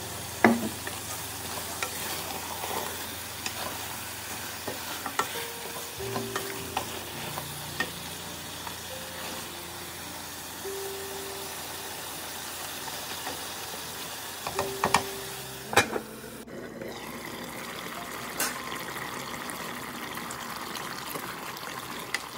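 Duck meat sizzling as it is stir-fried in an aluminium pot, with a wooden spatula scraping through it and knocking against the pot. There are a few sharp knocks, the loudest about half a second in and two-thirds of the way through.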